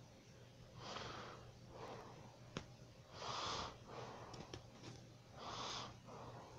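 A sleeping person's noisy snoring breaths: three breath cycles about two seconds apart, each a breath in and a breath out. A single short click falls in the middle, over a faint steady low hum.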